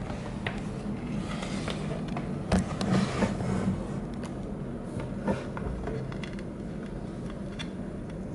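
Plastic McDonald's Happy Meal Monkey D. Luffy figure being handled: light plastic clicks and scrapes, with a few louder knocks around a third of the way in and again past halfway.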